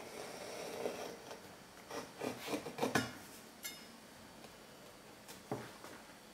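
Kitchen knife scraping and cutting along a bamboo cutting board while trimming the fat from a slice of cured ham: soft rubbing at first, then a few light knocks of the blade on the wood between two and three seconds in, and one more knock later.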